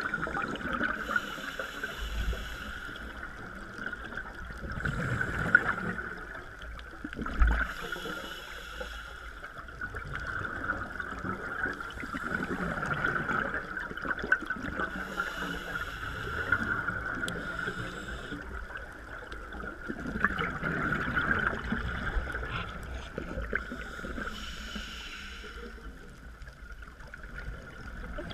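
Scuba diver breathing through a regulator, heard underwater. About four slow breaths, each a hissing inhale followed by a bubbly, rumbling exhale.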